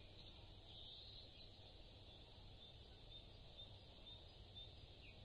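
Near silence: a faint outdoor ambience bed, a low hush with soft high chirps recurring about twice a second.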